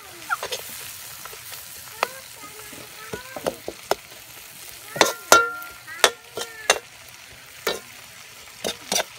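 Kangkong (water spinach) sautéing in a large metal wok: a steady sizzle, with the steel ladle scraping and clanking against the pan every second or so as it is stirred. The loudest clank comes a little past five seconds in.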